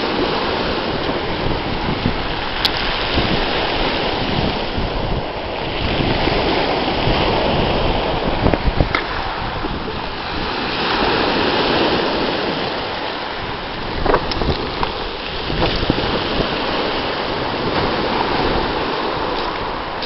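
Black Sea surf breaking on a pebble beach, the wash swelling and easing every few seconds, with wind rumbling on the microphone.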